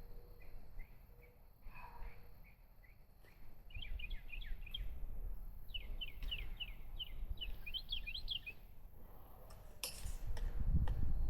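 A bird calling outdoors in runs of quick, high chirps, each dropping in pitch, with fainter chirps before them. Near the end a sharp click comes, then a louder low rumble.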